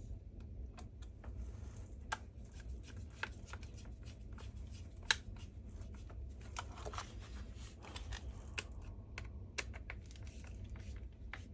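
Irregular light clicks and taps of plastic parts being handled while the cordless vacuum's roller-head housing is screwed back together, with one sharper click about five seconds in, over a low steady hum.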